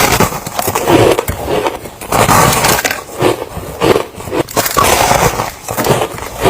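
A person biting and chewing soft, crunchy ice close to the microphone: a quick run of loud crunches with a couple of brief pauses.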